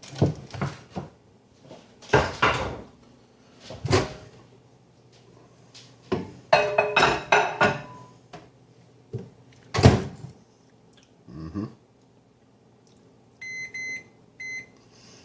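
A microwave oven being loaded: knocks and clatter of a dish and the oven door, then a few short electronic keypad beeps near the end as the cook time is set.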